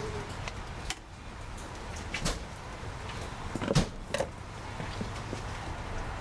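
A few sharp clicks and knocks from hand tools and wiring parts being handled, over a steady background hiss. The loudest knock comes a little before four seconds in, with another just after it.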